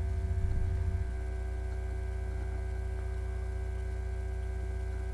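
Steady electrical mains hum picked up by the recording microphone: a low buzz with several faint steady tones above it. The low buzz drops slightly about a second in. The hum is a sign of the uneven microphone condition that the uploader apologises for.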